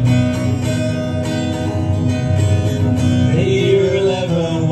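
Music led by strummed acoustic guitar, with a voice singing in the second half.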